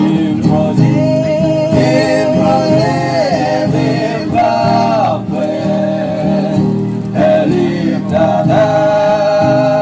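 A group of voices singing a song together in harmony, choir-style, with long held notes and a melody line that steps between pitches.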